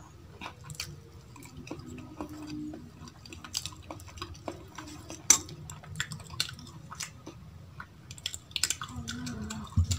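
Close-miked hand-eating sounds: chewing, and fingers mixing rice and vegetable curries on a stainless-steel plate, with many sharp clicks against the metal, the loudest about five seconds in. Near the end, dal is poured from a steel bowl onto the plate.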